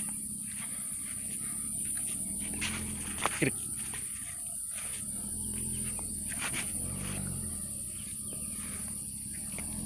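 Old sand truck's engine running at low revs, its pitch slowly rising and falling, with a short sharp squeal that drops in pitch about three seconds in.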